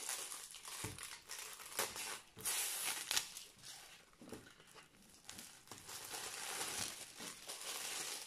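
Plastic wrapping crinkling and rustling as it is pulled off a rolled canvas by hand, with several sharp crackles in the first few seconds.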